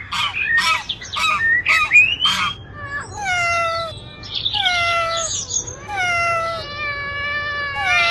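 A domestic cat meowing: four long, drawn-out meows, each falling in pitch, beginning about three seconds in. They are preceded by a quick run of short animal calls.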